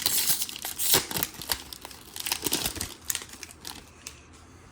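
Foil trading-card pack wrapper crinkling and tearing as it is opened, busiest in the first three seconds and dying down near the end.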